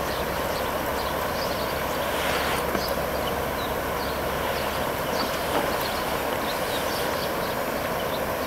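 Steady outdoor rushing noise by a river, with short, faint high chirps of small birds scattered through it.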